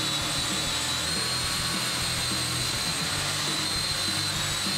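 Cordless drill spinning a sanding drum against the cut edge of a circular hole in a wooden board: a steady high motor whine over the rasp of sandpaper on wood.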